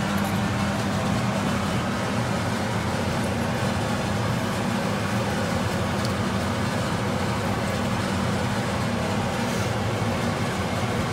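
Steady low hum of a running kitchen appliance fan, even in level throughout.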